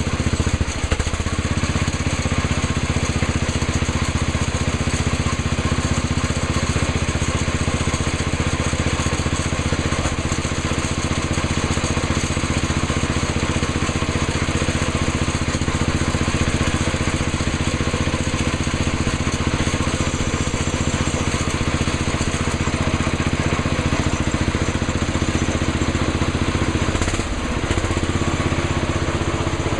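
A 1968 Sears 10 XL garden tractor's engine idling steadily, with a brief dip in the sound near the end as the tractor is driven off.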